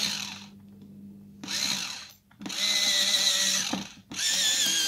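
Electric pencil sharpener's motor whirring as a pencil is pushed in, starting and stopping in several short runs; the last runs last over a second each, and their pitch wavers under the pencil's load.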